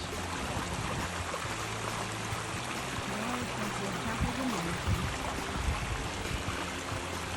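Wind rushing over the microphone: a steady hiss with uneven low rumbling buffets.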